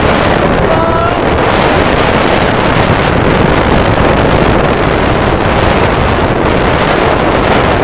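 Steady, loud rush of strong wind across the microphone aboard a small sailboat heeled under sail, mixed with water rushing past the hull.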